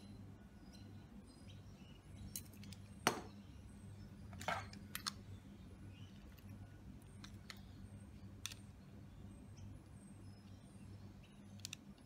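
Handling of a knob lock's metal parts and a digital caliper: a few scattered light clicks and taps, the sharpest about three seconds in, over a low steady hum.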